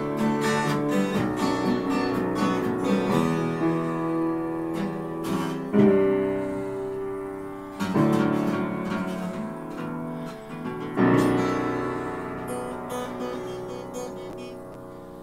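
Acoustic guitar strummed together with an upright piano, then three loud struck chords about two to three seconds apart, each left to ring out, the sound fading away near the end.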